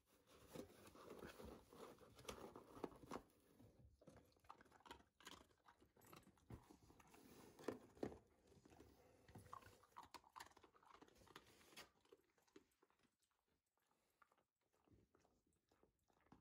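Faint crunching and chewing of a dog eating food, mixed with cardboard rustling as it noses around inside a box; the sounds thin out after about twelve seconds.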